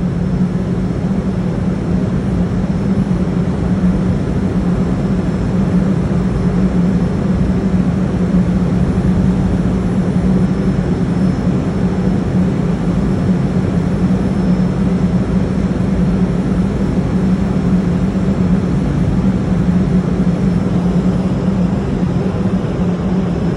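Steady low drone of a container ship under way: a constant hum over an even rushing noise, with no change in pitch or level.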